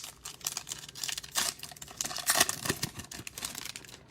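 Cellophane wrapper of a trading-card pack being torn open and crinkled: a run of irregular sharp crackles, loudest about a second and a half and two and a half seconds in.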